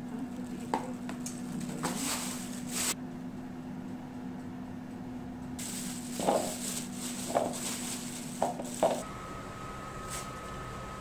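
Kitchen handling sounds: lidded plastic food containers handled over a bowl, with a few sharp knocks and clatters over a steady low hum.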